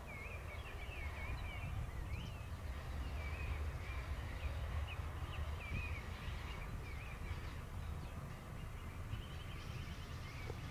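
Birds calling with short, wavering chirps, a few each second, over a steady low rumble.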